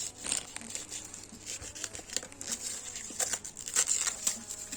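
Plastic packaging being crinkled and torn open by hand: a run of irregular, crackly rustles.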